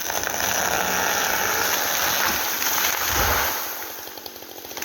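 A felled tree coming down: a long rushing swish of its crown sweeping through the air and the branches around it, ending in a deep thud as it hits the ground about three seconds in, then fading.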